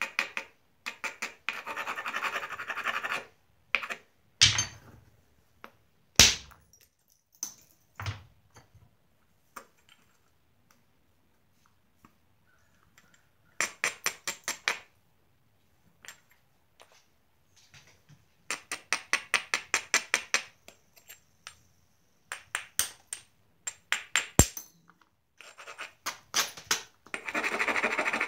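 Edge of a Georgetown flint biface being rubbed with a hand-held abrading stone: several runs of quick, scratchy back-and-forth strokes, with a few sharp single clicks between them. The abrading grinds the edge to prepare the platforms for the next flakes.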